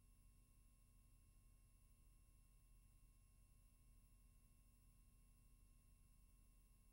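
Near silence: the empty soundtrack of a silent film, with only a faint steady hum.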